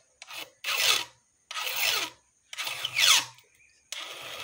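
Flat file rasping across a chainsaw chain's depth gauges to lower them: three firm strokes about a second apart, then a lighter stroke near the end.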